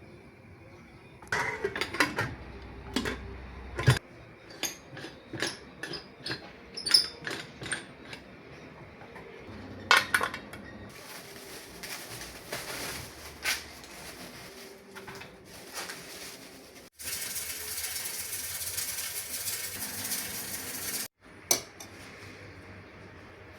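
Kitchen containers and dishes clinking and knocking as they are picked up and set down, a quick run of sharp clinks. Later comes a few seconds of loud steady hiss that starts and stops abruptly.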